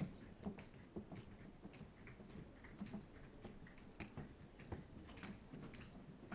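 Faint footsteps of several people walking, irregular taps and clicks several times a second, over a low murmur of the room.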